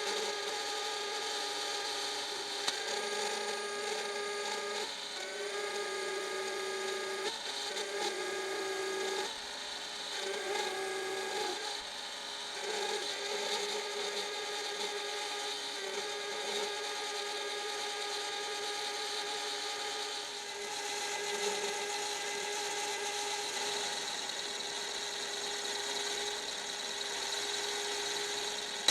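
Mini lathe running with a steady motor whine over a scraping hiss, as aluminium is turned for a handwheel. The whine dips and wavers several times between about five and thirteen seconds in, then holds steady.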